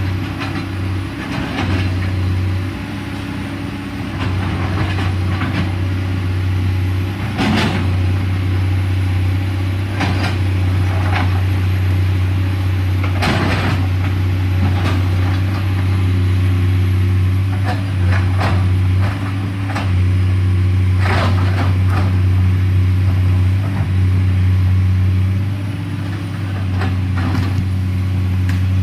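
Komatsu PC210LC hydraulic excavator working, its diesel engine running steadily under load. Several sharp knocks break through, the strongest about a quarter, halfway and three-quarters of the way in.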